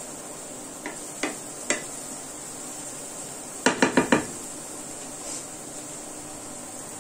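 Wooden spatula knocking against a nonstick frying pan while stirring garlic, parsley and shallots frying in oil. A few single knocks come in the first two seconds, then a quick run of four or five louder knocks a little before the middle, over a steady hiss of frying.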